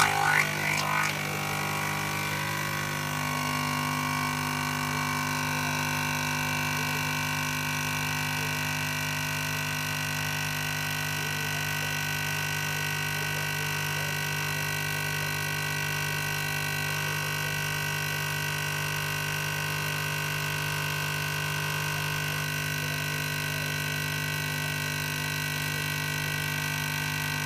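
Coffee machine running: a loud, steady mechanical hum with several fixed tones, with some clattering in the first second, cutting off suddenly at the end.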